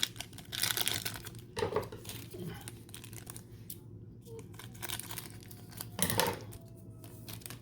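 Plastic wrapper of a football trading-card pack being torn open and crinkled by hand, in irregular bursts of crinkling. The loudest bursts come about a second in and again near six seconds in.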